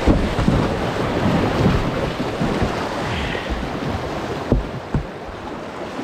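Whitewater rushing and splashing over the bow of a kayak running a small river rapid, heard close up. Two dull knocks come a little before the end.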